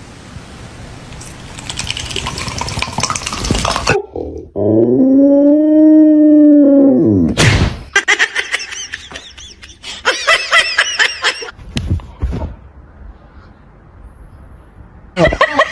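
Dogs calling in a run of short clips. The loudest is one long howl-like call about five seconds in that rises and then falls in pitch. A few seconds later come high, wavering squeals, and another wavering call starts near the end.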